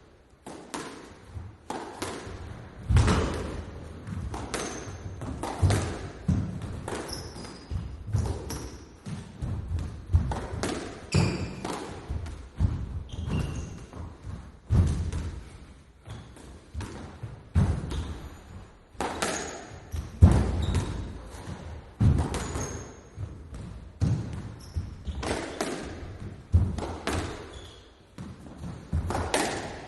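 Squash rally: the ball is struck with racquets and smacks off the court walls in a quick irregular rhythm of sharp hits, about one a second. Short high squeaks come between the hits.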